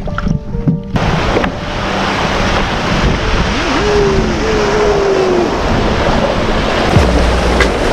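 Rushing whitewater churning around a wooden canoe running down river rapids, a loud steady rush that starts suddenly about a second in, mixed with wind buffeting the microphone.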